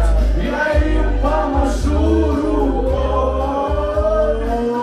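Karaoke singing through a microphone and PA over a loud backing track with a pulsing bass beat; a long held note rises slightly near the end.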